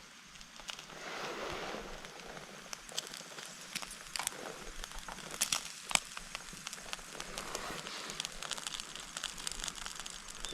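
Wood campfire crackling, with scattered sharp pops, two of them louder about halfway through, and a brief rustle about a second in.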